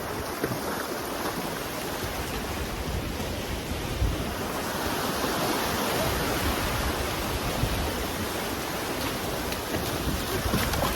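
Sea surf washing in at the shoreline: a steady rushing noise that swells a little about halfway through.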